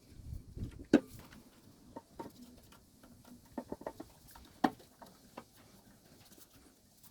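Scattered light clicks and knocks of tools and small metal parts being handled, the sharpest about a second in and a few more near the middle.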